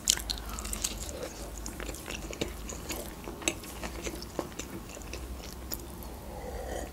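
Close-up chewing of a soft tortilla wrap after a bite, with many small wet mouth clicks. Near the end there is a sip from a glass of drink.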